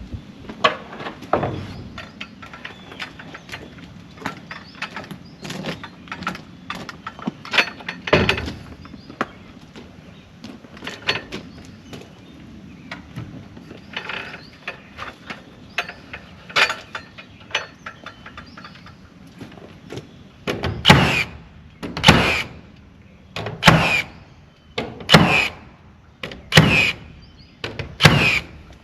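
Scattered knocks and clatter, then a run of about six heavy strikes roughly a second and a half apart, each ringing briefly.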